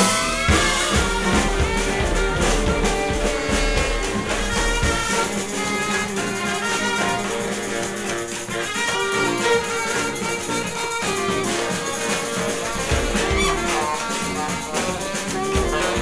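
Live jazz brass band playing: horns hold long notes over a low bass line with drums keeping time.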